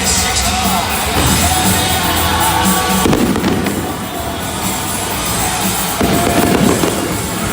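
Fireworks bursting and crackling over music played for the show.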